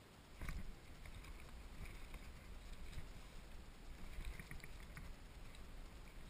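Water sloshing and lapping against a Hobie Outback kayak's hull close to the microphone, with a low uneven rumble. A sharp knock comes about half a second in, and a few faint clicks follow later.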